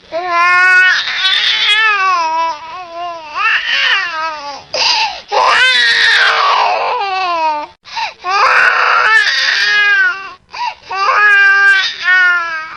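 Baby crying: loud, rising-and-falling wails in several bouts, with short breaks for breath about 8 seconds in and again about 10.5 seconds in.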